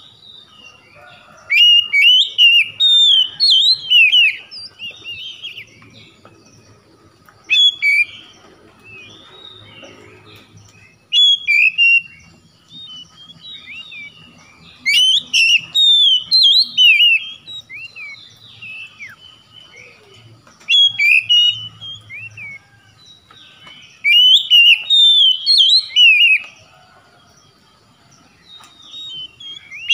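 Oriental magpie-robin singing in loud bursts of rapid, varied whistles and chattering phrases, each lasting one to three seconds, with short quiet pauses between them.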